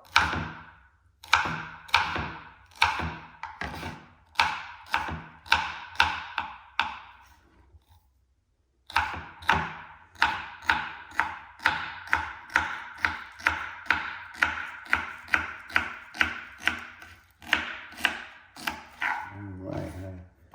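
Kitchen knife chopping celery on a cutting board: a steady run of sharp chops, about one and a half a second, a short silent break near the middle, then faster chopping at about two a second.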